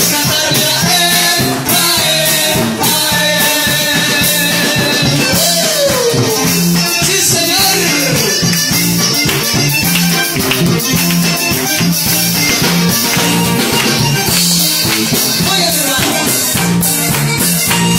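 Live band playing an upbeat instrumental passage: accordion, electric guitar and drum kit, with a steady shaker-like rattle keeping the beat.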